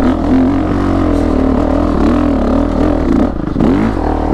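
2019 Honda CRF450RX's single-cylinder four-stroke engine revving hard up a loose, rocky hill climb, the revs rising and falling as the throttle is worked over the terrain. Near the end the pitch swoops down sharply a couple of times.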